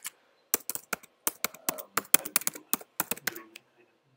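Typing on a MacBook laptop keyboard: a quick, uneven run of key clicks that stops shortly before the end.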